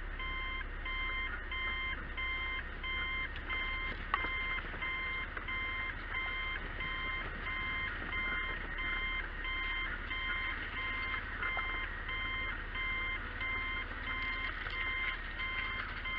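An electronic vehicle warning beeper sounds a steady, evenly repeating beep over the low rumble of an idling or crawling vehicle engine.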